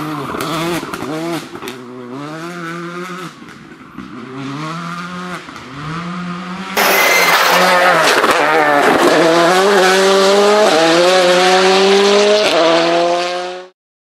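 Rally car engines at full throttle: a Škoda Fabia R5 pulls away through several quick upshifts, its pitch climbing and dropping each time. About seven seconds in, a much louder car is heard accelerating hard, its pitch rising steadily with one upshift near the end, before the sound cuts off abruptly.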